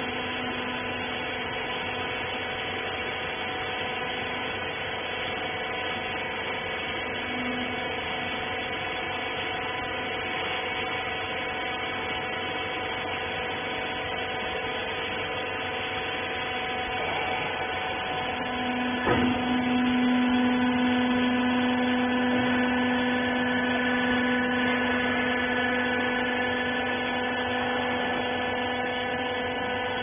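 Wiper rag baling machine running with a steady electric hum and whine. About nineteen seconds in there is a sharp knock, and a lower hum comes in louder and holds.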